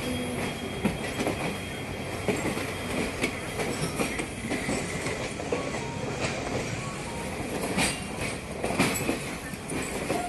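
Passenger trains rolling along, heard from the window of a moving coach: a steady rumble of wheels on rail with irregular clacks as the wheels cross rail joints and points.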